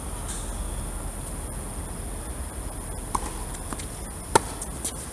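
Tennis rally: a few sharp pocks of the ball off rackets and the hard court, the loudest about four seconds in, over a steady high-pitched chirring of insects.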